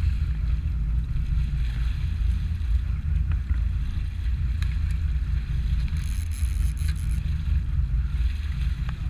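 Charter boat's engine running with a steady low rumble, mixed with wind buffeting the microphone; a few faint clicks.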